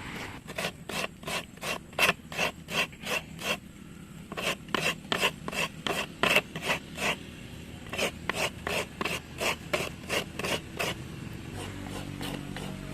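Rapid rasping scrape strokes, about three a second, in three runs broken by short pauses, typical of cowhide being scraped clean. A low pitched sound comes in near the end.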